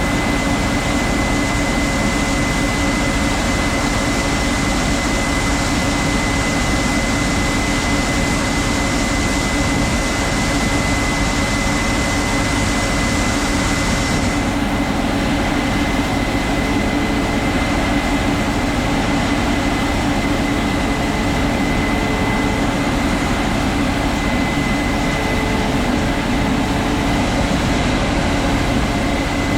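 Heavy farm machinery engine running steadily, a constant drone with a thin steady whine above it. A hissing layer in the upper range drops away about halfway through.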